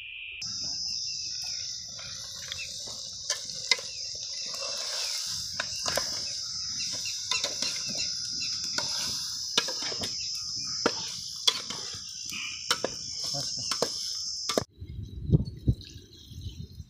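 A steady, high-pitched insect chorus, with scattered sharp clicks and knocks of a steel ladle against a steel cooking pot as curry is stirred. Near the end the insects stop abruptly and only low rumbling and a few knocks remain.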